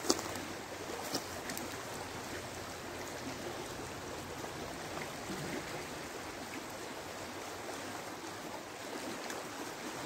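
River water flowing with a steady rush, with one sharp click right at the start.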